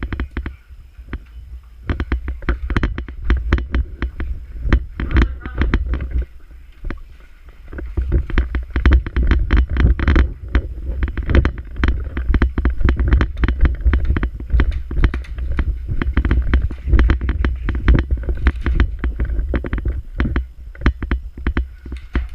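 Airsoft gameplay heard on a body-worn action camera: irregular sharp clicks and snaps, several a second, over a steady low rumble of wind and movement on the microphone, with a quieter lull about six seconds in.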